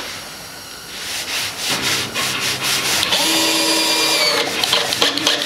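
Cordless drill driving a wood screw into a wooden board: the motor whirs in a steady run from about two seconds in, with the screw grinding into the wood.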